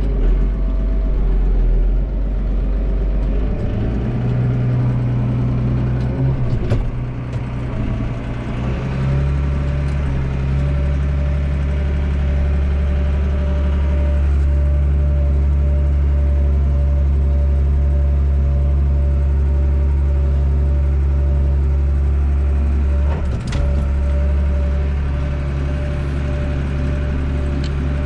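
Massey Ferguson 8570 combine running while harvesting corn: a steady engine drone that changes note about four seconds in and settles into an even, heavier drone from about nine seconds on. Two brief knocks come through it, one near seven seconds and one in the last few seconds.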